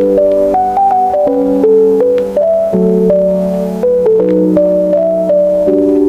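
Electronic keyboard music with a piano-like tone: a melody of held notes over sustained chords, with no singing.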